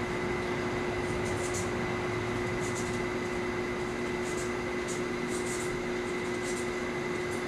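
Pen scratching on paper in short, irregular strokes as a signature is written, faint over a steady machine hum with a few held tones.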